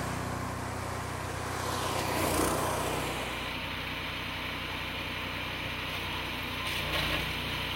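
The 15-horsepower engine of a chipper shredder mulcher running steadily, with a louder rushing swell about two seconds in and a smaller one near the end.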